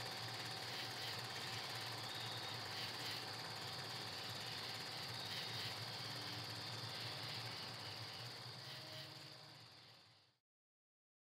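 Steady hiss with a high-pitched whine and a low hum, fading over the last two seconds and cutting off to silence about ten seconds in.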